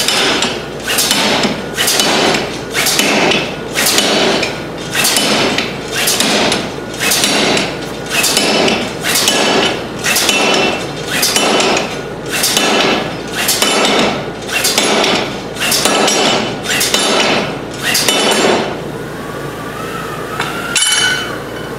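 Power hammer striking glowing railroad-car spring steel held in a ball die, forging a ball onto the end of a vise handle: evenly paced blows with a metallic ring, about one a second, that stop near the end.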